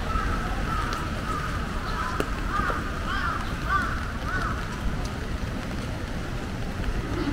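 A bird calling, a quick series of short rising-and-falling calls about half a second apart that fade out about halfway through, over steady low street noise.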